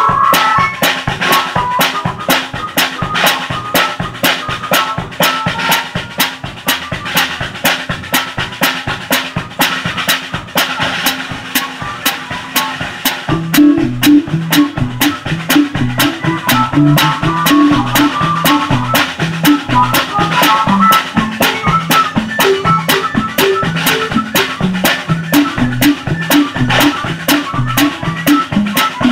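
Live band music with a drum kit loudest up close: a steady beat of drum and cymbal hits. Low pitched notes, like a bass line, come in about halfway.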